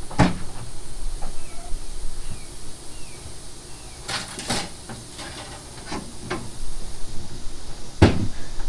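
Distant knocks and clatter of items being moved in a pickup truck bed, sharpest just after the start and about eight seconds in, with a cluster about four seconds in. A steady hiss runs underneath.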